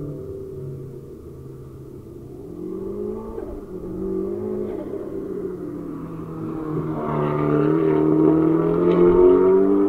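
Drift cars' engines revving up and down as they slide through the corner, the sound growing louder over the last few seconds as one car comes closer.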